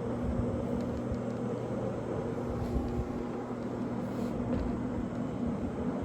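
Rotary carpet-cleaning machine running steadily, its electric motor giving a constant hum over a noisy whir as it is worked across the carpet.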